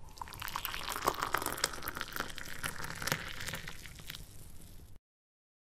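Cooking oil sizzling and crackling with many small pops in a hot non-stick pan, cutting off suddenly about five seconds in.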